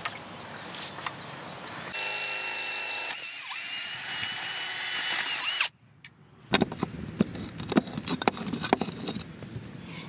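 A cordless drill whines steadily, then runs rougher as it bores a hole into the rim of a cast concrete bowl, about two to five and a half seconds in. After a short pause comes a quick run of small clicks and knocks.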